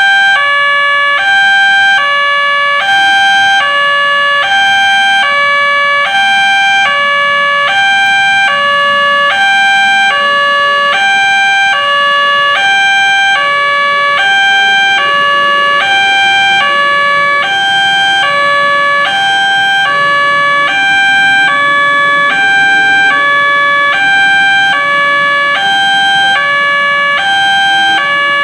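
Railway level-crossing siren from a Nataya Putra barrier's horn loudspeaker: a loud two-tone signal switching between a higher and a lower pitch about twice a second, warning that a train is approaching.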